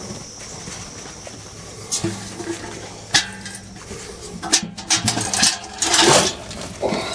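Cattle feed poured from a bucket, a rushing, rattling pour in several bursts over the last few seconds. Earlier, about two seconds in, a cow lows low and steadily for a couple of seconds.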